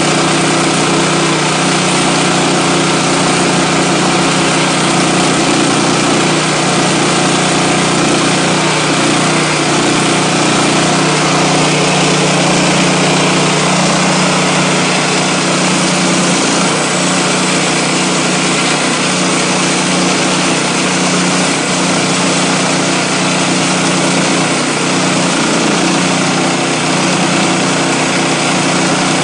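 Gasoline engine of a Woodland Mills HM126 portable bandsaw sawmill running steadily at a constant pitch, with no change in speed or load.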